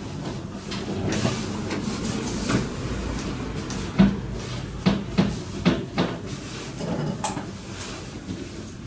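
Aluminium frame parts and panels being handled and knocked together: a series of knocks and rattles, with a cluster of sharp knocks about four to six seconds in and a brief high squeak near the end.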